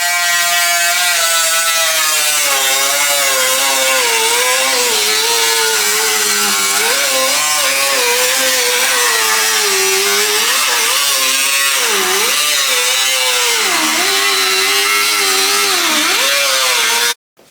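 High-speed power tool running at full speed, its whine sagging sharply and recovering again and again as it is pressed into the work, over a dense hiss. It cuts off abruptly near the end.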